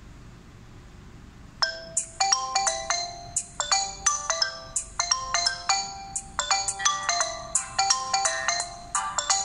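Smartphone ringtone for an incoming call, starting about one and a half seconds in: a quick melody of short chiming notes, each dying away fast.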